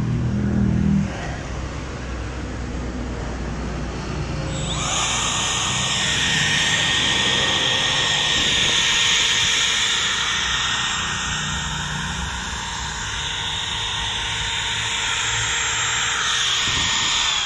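Makita 18V brushless cordless compact router switched on about five seconds in, running free with a steady high-pitched whine. It is switched off near the end and starts to coast down, since it has no electric brake.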